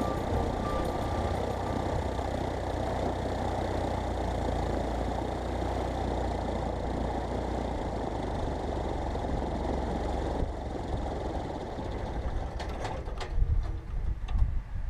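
Piper PA-28 Warrior II's four-cylinder Lycoming engine idling on the ground, then shut down. The steady running drops off about ten seconds in, and near the end the engine gives a few uneven knocks as the propeller runs down.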